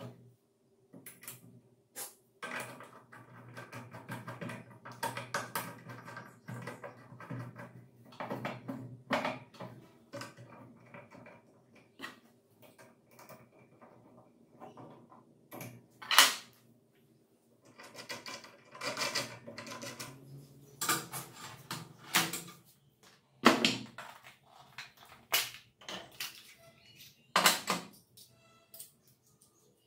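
Irregular clicks, clinks and knocks of metal parts being handled as a grip handle is fitted and screwed into the angle grinder stand's metal bracket, with small screws and hex keys picked up and set down. Several sharper knocks stand out in the second half.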